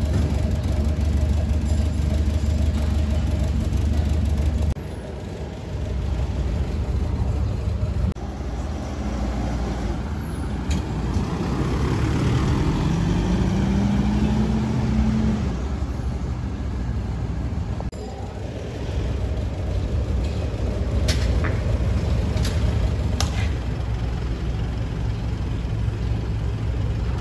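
Mitsubishi Pajero Sport's engine running as the SUV drives off. Its note rises and holds around the middle. A few sharp clicks come near the end.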